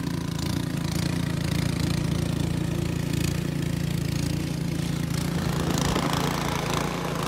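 Engine of a snow-clearing machine running steadily with a constant low hum.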